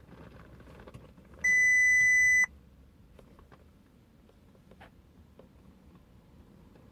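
A single steady electronic beep, high-pitched and lasting about a second, from a piezo-type buzzer, with a few faint ticks after it.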